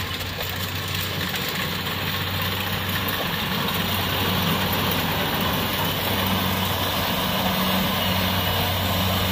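Kubota DC-70-series rice combine harvester's diesel engine and threshing gear running steadily at working speed while it cuts rice, a constant deep drone. It grows a little louder about halfway through, when a thin high whine joins in.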